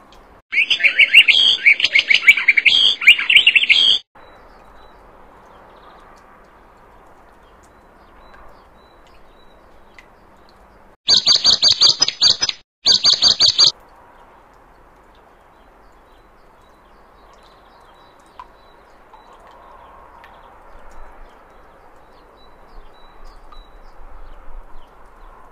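Bird calls: a loud burst of rapid chirping for about three and a half seconds that stops abruptly. About eleven seconds in come two short bursts of very high, rapid trilling, over a faint steady hiss.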